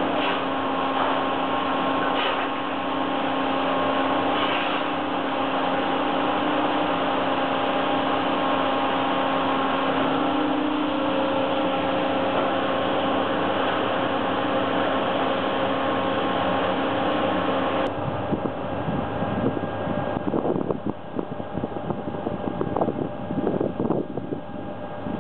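Heavy machinery at a wood-chip trailer dumper running steadily with a constant hum. About 18 seconds in, the sound changes abruptly to an uneven noise with scattered knocks.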